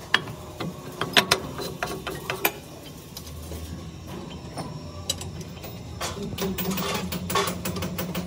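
Sharp metallic clanks and clicks as a rusted steel plate is handled and set up against a lathe chuck, most of them in the first couple of seconds. A steady machine hum runs underneath and gets louder about six seconds in.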